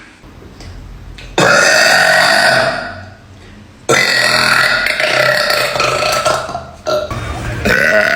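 A girl belching loudly in three long, drawn-out burps. The first lasts about a second and a half, the second about three seconds, and the third starts near the end.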